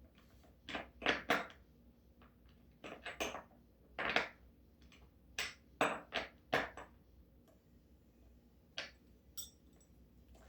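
Metal parts of a skateboard truck and a skate tool clinking and clacking as the newly fitted bushings are worked on: a string of sharp, irregular clicks, some close together in pairs.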